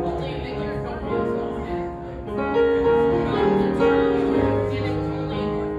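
Slow instrumental keyboard music, likely piano, playing a melody over held chords.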